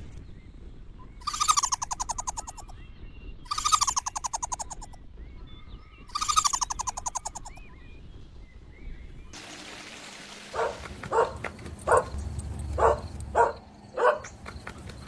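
A bird's rapid pulsing trill, three times, each about a second long, with faint chirps between. After an abrupt change, a run of short high puppy yips, about seven in five seconds.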